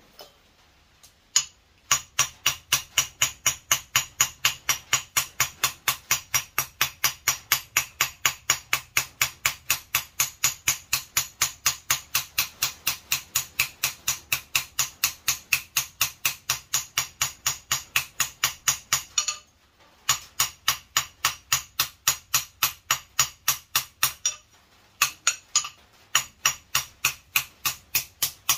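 Hand hammer forging hot steel on an anvil: fast, steady, ringing blows at about four a second, with two short pauses for repositioning the work about two-thirds of the way through.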